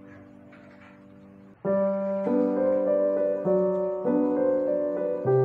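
Background piano music: soft held notes, then about a second and a half in a louder piano melody starts, with a new note every half second or so.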